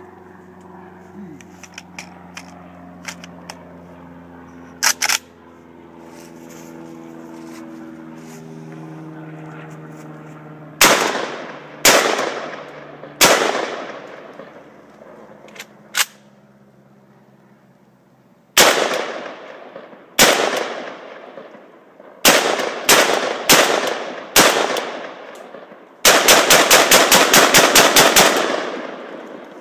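Gunshots from an AK-pattern Krinkov short-barrelled rifle, loud and echoing. Single shots come a second or two apart, then a quick group of five. Near the end there is a rapid even string of about fifteen shots in two seconds as the rifle is bump-fired.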